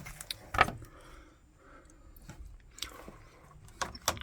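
Plastic wiring connector on a Honda PCX 125 scooter being handled and worked loose, giving a few sharp clicks and crackles: the loudest about half a second in, more near the end. The connector is being checked as the cause of the scooter's no-crank, no-start fault.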